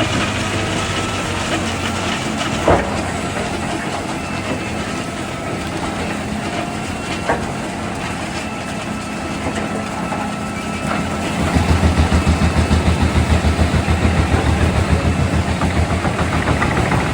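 A large wood chipper of about 800 horsepower running steadily with its flywheel spun up, with a couple of sharp knocks. About two-thirds of the way in it drops into a louder, rapidly pulsing low rumble as it bites into the wood under load.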